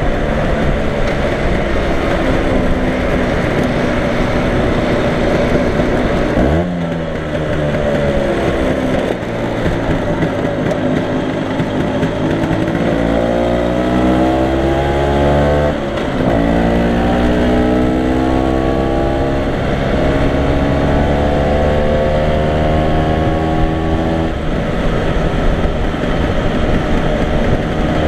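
Vintage Vespa scooter's two-stroke single-cylinder engine pulling along at road speed, heard from the rider's seat with rushing wind. The engine pitch climbs as it accelerates and drops sharply at gear changes about six and a half and sixteen seconds in, then climbs again.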